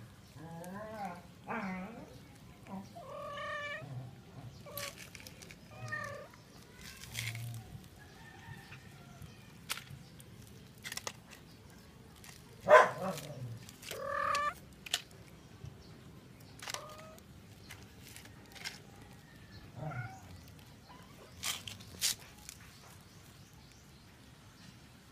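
Short animal calls scattered throughout, some wavering in pitch, mixed with sharp taps and knocks; the loudest is a sharp knock just before halfway.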